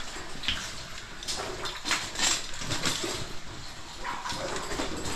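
Boots splashing and sloshing through shallow running water in a cave stream passage, with scattered knocks and clinks of hands and gear against the rock.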